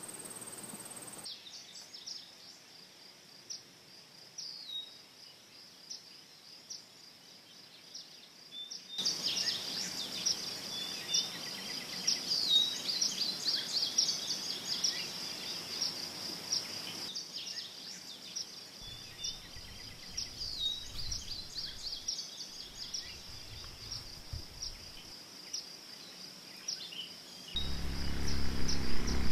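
Summer field ambience: a steady high-pitched insect chorus with scattered short bird chirps. It changes abruptly in level several times, and a louder low hum comes in near the end.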